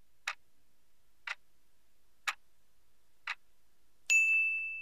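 Quiz countdown timer sound effect: clock ticks once a second, four times, then a bell-like ding near the end that rings on and fades, marking that the answer time is up.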